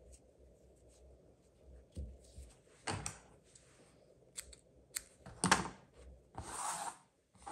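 Small craft scissors snipping yarn and being put down on a tabletop: a few sharp clicks, the loudest about five and a half seconds in. Brief rustles of crocheted yarn being handled, one near the end.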